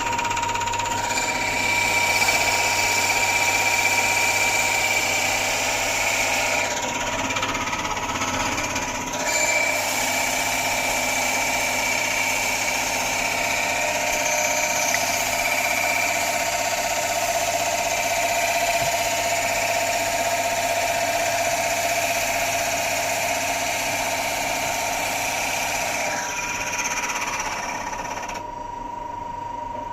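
Pillar drill running with a steady motor whine while its bit bores into a wooden rolling pin, the cutting noise coming in passes with short pauses between them. Near the end the cutting stops and the drill runs free.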